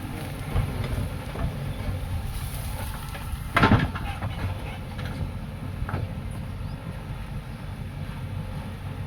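JCB construction machine's diesel engine running with a steady low rumble, and a loud metallic clank about three and a half seconds in, with a few lighter knocks around it.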